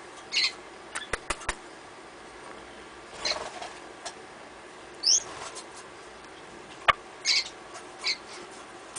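Short, high squeaks and chirps from pet birds, about five in all, one of them a quick rising whistle about five seconds in. A few sharp clicks come about a second in and again near seven seconds.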